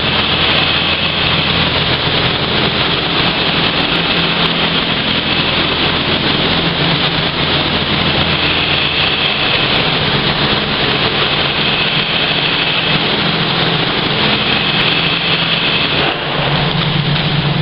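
High-pressure water jets from an ISTOBAL truck-wash nozzle bar spraying onto a tanker trailer: a loud, steady hiss over the low hum of the wash machinery. Near the end the low hum grows louder.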